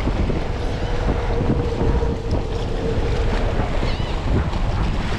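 Wind buffeting the microphone in a steady, uneven rumble over the sound of open water, with a faint steady hum through the first few seconds.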